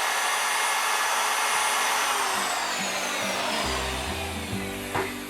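Router running steadily as it cuts a hinge mortise in the door edge, then switched off about two seconds in, its high whine falling as the motor spins down. Guitar music comes in over the end.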